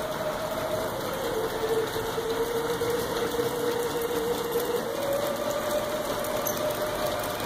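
LGB G-scale model train locomotives running on their track: a steady whine of electric motors and gearing over the rumble of wheels on rail. The whine steps slightly higher about five seconds in.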